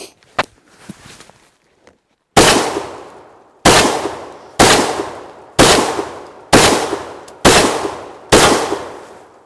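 12-gauge semi-automatic tactical shotgun firing double-aught buckshot: seven shots about a second apart, starting a couple of seconds in, each report echoing off and dying away. The gun cycles every shot without a hitch.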